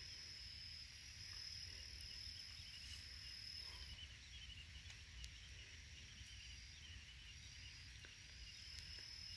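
Faint outdoor quiet with a steady high-pitched insect trill that breaks off briefly a few times, and faint soft chirps beneath it.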